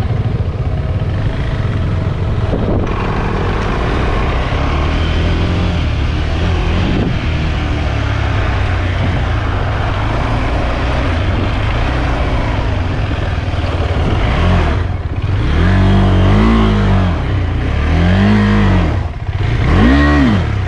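KTM 390 Adventure's single-cylinder engine riding along under a steady rush of wind noise. From about 15 seconds in, the revs rise and fall in quick surges four or five times.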